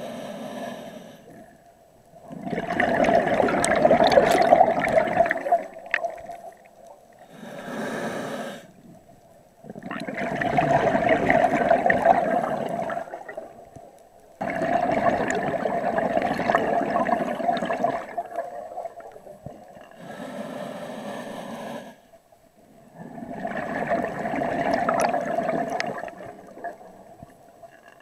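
A scuba diver breathing through a regulator: a short hissing inhalation, then a longer, louder rush of exhaled bubbles, repeating about every six seconds.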